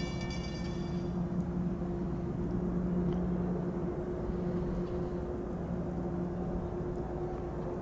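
Diesel freight locomotive approaching at the head of a double-stack container train, its engine running with a steady low drone over the rumble of the train.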